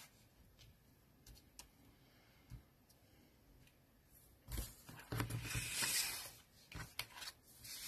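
A few faint light taps, then from about four and a half seconds in a sheet of stiff cardstock is picked up and handled, rustling and scraping for about three seconds.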